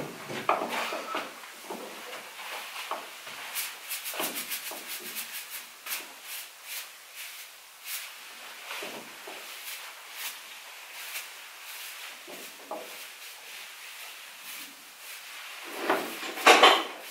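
Scattered rubbing, rustling and light clicks, with a quick run of clicks about four seconds in and a louder rush of noise near the end.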